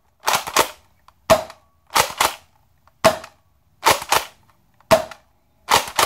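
Stock Nerf Rival Kronos pistol, with its factory spring, fired repeatedly: three sharp snaps about every second and a half. Each is followed by a quick double clack of the slide being pulled back and pushed forward to prime the next shot.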